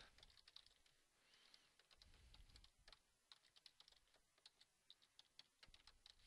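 Faint computer keyboard typing: a run of quick, irregular keystrokes, with a short pause after the first second.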